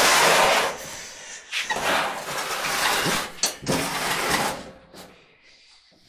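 A White Westinghouse clothes dryer being dragged and swung around across the floor, its cabinet scraping in several pushes, the first and loudest at the start, the rest dying away about five seconds in.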